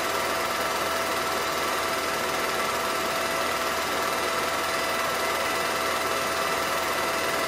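Home-movie film projector running steadily: a constant mechanical whir with a steady whine in it.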